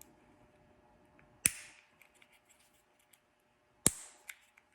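Two sharp clicks of small plastic parts about two and a half seconds apart, with a fainter tick after the second: the hazard-button indicator bulb and its keyed socket being turned the right way round and fitted into place.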